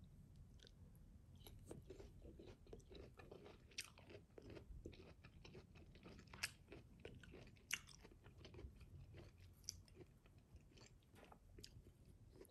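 Close-up chewing of crisp unripe green mango, a steady run of wet crunches, with two sharper crunches in the middle.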